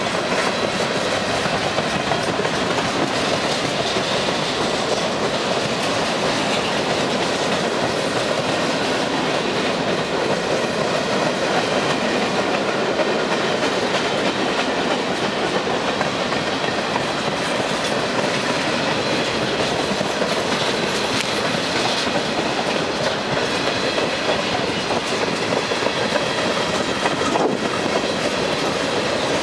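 Freight train cars rolling past at close range: steady noise of steel wheels running on the rails, with faint high ringing tones above it.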